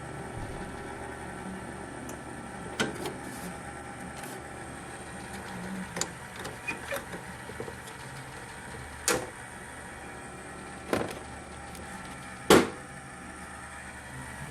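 Desktop PC running with a steady hum from its fans and liquid-cooling radiator, carrying an unexplained rattling, rumbling noise that the owner cannot locate. Several sharp knocks or taps are scattered through it, the loudest near the end.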